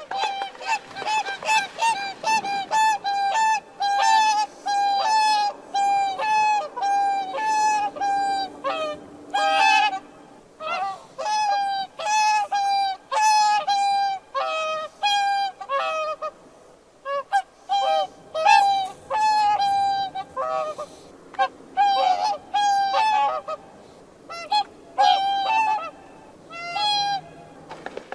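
Swans calling: a long series of short trumpeting honks, about one or two a second, at two different pitches that sometimes overlap, with a few brief pauses.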